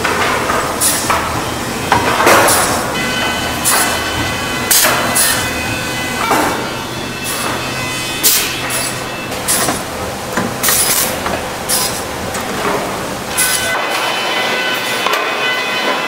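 Timber-processing machinery running with a steady whine, while boards knock and clatter sharply at irregular intervals, roughly once a second.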